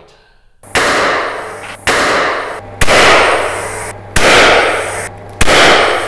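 Five loud bangs a second or so apart, each starting sharply and dying away over about a second: the shot of a vacuum-tube atmospheric cannon, its end disc bursting and a ping pong ball punching through a Coke can, heard again and again.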